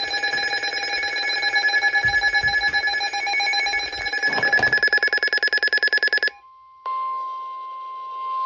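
Buzzing, rapidly pulsing electronic alert tones for about six seconds, then an abrupt switch to a steady single-pitch tone near 1 kHz: the weather radio warning alarm tone (1050 Hz) that comes before a spoken severe thunderstorm warning.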